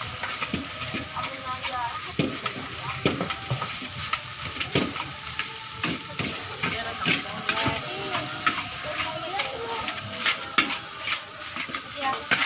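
Fried rice sizzling in a hot pan while a metal spatula stirs and tosses it, with frequent sharp clacks and scrapes of the spatula against the pan over a steady sizzle.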